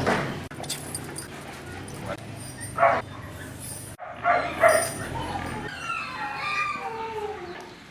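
Dogs barking in short outbursts, about three seconds in and again near the middle, during guard-dog aggression training.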